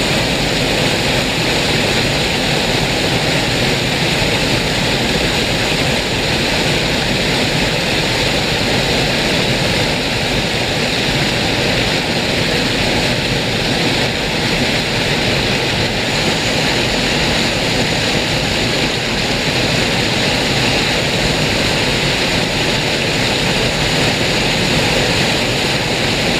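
Loud, steady rush of a river swollen after a big flood, the floodwater pouring and churning without a break.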